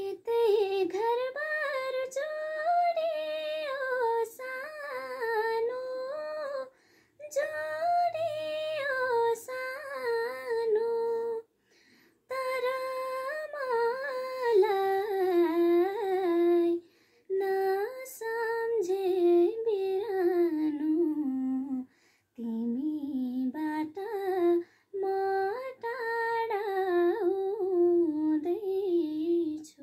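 A woman singing a Nepali song solo and unaccompanied. She sings in phrases of a few seconds, with short pauses for breath between them.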